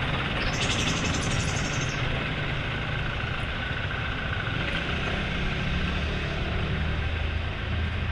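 Steady road traffic: vehicle engines running with a low rumble, and a brief hiss about half a second in.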